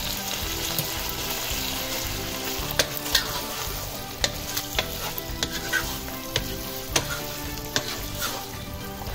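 Mutton stew masala sizzling in desi ghee in a nonstick pan as a wooden spoon stirs it, with scattered clicks of the spoon against the pan. This is the bhuna stage: the liquid has cooked off and the meat and masala are frying over high heat until the oil separates.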